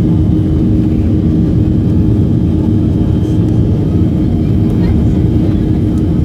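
Airliner cabin noise while taxiing onto the runway: a steady low rumble of the jet engines and airframe with one constant hum, holding even throughout.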